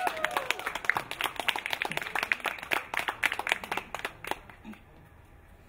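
Audience clapping to welcome performers, thinning out and stopping about four seconds in.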